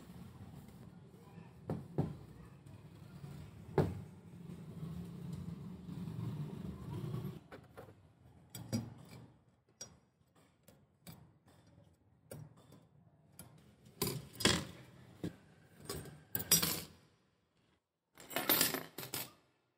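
Sharp metallic clinks and clatter of steel spokes and spoke nipples being undone and pulled from a Honda CD70 motorcycle wheel. A few separate knocks come over a low rustle first, then the clinks come quicker and louder in the last few seconds as loose spokes rattle against the rim and hub.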